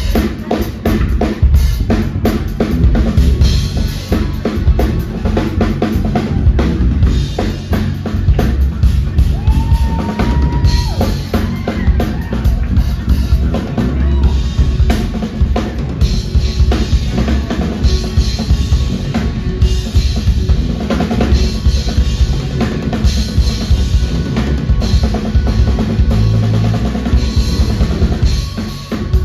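Live band playing an instrumental, with the drum kit (kick, snare and rimshots) and hand percussion to the fore over bass and other pitched instruments.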